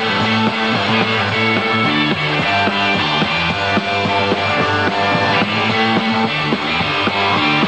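Live garage-rock band playing an instrumental passage without singing: electric guitars over bass and drums, with a steady rhythm of short notes.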